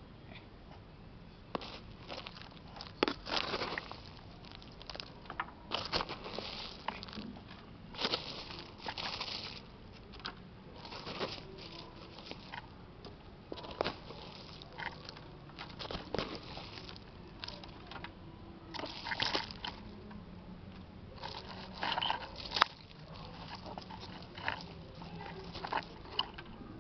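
Fingers digging and scraping through loose potting soil and dry roots to unearth ginger in a pot, making irregular crunching, crackling scrapes with the odd sharp click.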